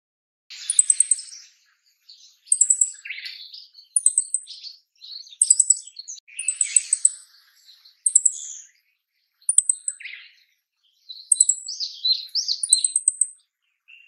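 Male meadow bunting giving its short call, a sharp, high 'chi-chit, chi-chi-chit' of two to three notes, repeated every second or so.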